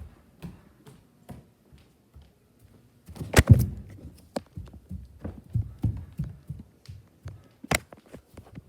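Scattered low thumps and knocks from things being handled and moved about, the loudest a cluster about three and a half seconds in and a sharp knock near the end.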